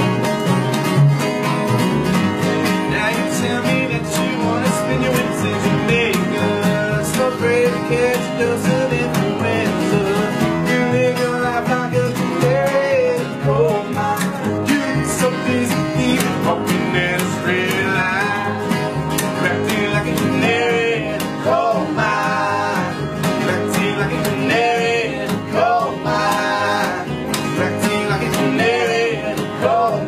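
Acoustic bluegrass-style band playing: strummed and picked acoustic guitars over plucked upright bass, with voices singing in the second half.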